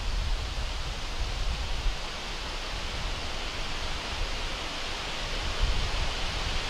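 Steady wind through grass and tree leaves, with a low rumble of wind buffeting the microphone that swells in gusts, most strongly near the end.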